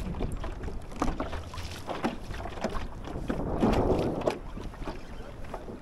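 Water lapping and slapping against a plastic fishing kayak's hull, with irregular small knocks and a louder wash of water a little past the middle, over some wind on the microphone.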